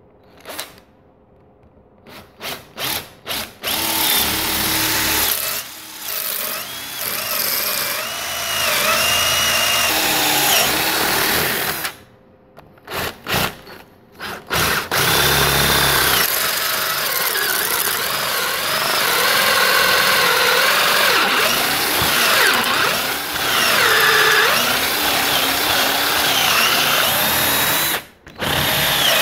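Power drill boring into the old wooden handle wedged in the eye of a rusty ball-peen hammer head, cutting relief holes to free the old wedges. It starts with a few short trigger blips, then runs in long stretches with its motor pitch wandering under load. Partway through it stops for a moment and gives a few more blips, and it stops briefly again near the end.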